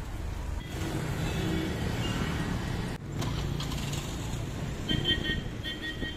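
Road traffic: vehicle engines running past in a steady low rumble, with a few short high beeps about five seconds in.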